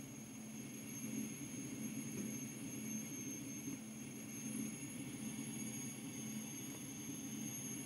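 Replica Ghostbusters proton pack sound effect: a steady low hum that swells and eases slightly, with a thin high whine over it.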